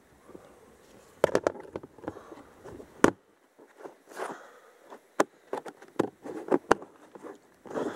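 Plastic food-container lid being pressed down and snapped shut: a run of sharp clicks and short crinkly handling noises starting about a second in, with several single loud snaps.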